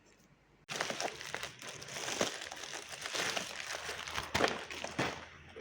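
Parcel packaging crinkling and rustling as it is handled and opened, with many sharp crackles; it starts abruptly about a second in.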